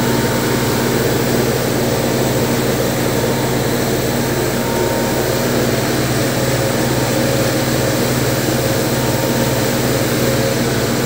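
Automatic carpet-washing machine running as a rug passes through: its rotating brushes scrub and water sprays down onto the carpet, giving a steady machine hum with a hiss of water and a low regular pulsing.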